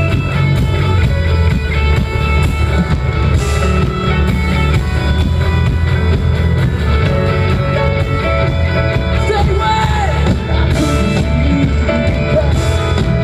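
Live pop-punk band playing loud through the PA: electric guitars carrying a melodic line over bass and drums, with no vocals in the transcript.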